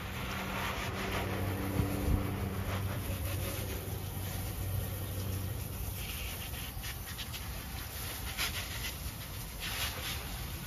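Garden hose spray nozzle spraying water over a car's engine bay, the spray hissing and spattering on the engine parts, rinsing off degreaser. A low hum runs under it for the first few seconds, with a couple of knocks about two seconds in.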